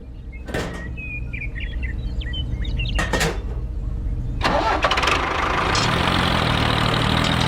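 Small engine starting up, then running louder and steadier from about four and a half seconds in.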